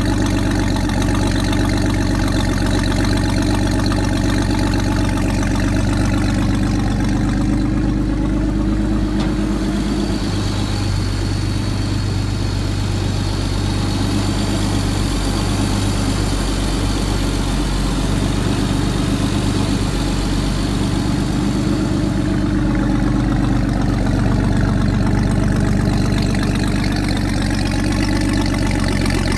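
Newly installed inboard engine of a 1956 Chris-Craft Capri runabout idling steadily on a test run, with cooling water splashing out of the transom exhaust outlet. The sound changes a little in the middle, when it is heard closer to the engine itself.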